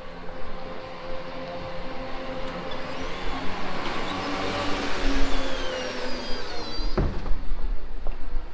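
A vehicle passing along a wet brick street, its tyre hiss and running noise swelling and then fading. A sharp knock comes about seven seconds in.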